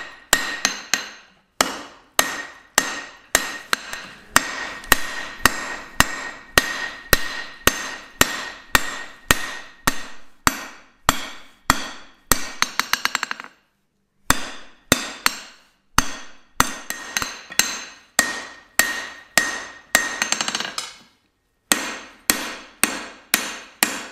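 Blacksmith's hand hammer striking a red-hot steel bar on an anvil, drawing it out with the round face of the hammer, about two blows a second with a ringing anvil tone after each. Twice a quick run of light rapid taps, and two short pauses, one about halfway through and one near the end.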